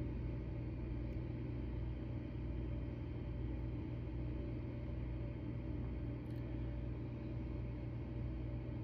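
A vehicle engine running steadily outside, heard as a constant low rumble.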